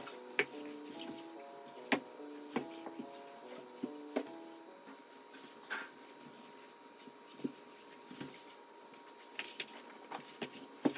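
Body and suit scuffing, rubbing and knocking on a hard floor during breakdance backspin attempts, with scattered sharp knocks and a few dull thumps; near the end, fabric rustling as the suit jacket is pulled off. Soft background music with a stepping melody plays under the first half.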